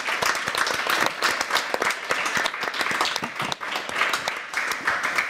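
Applause: many hands clapping at once, thinning out near the end.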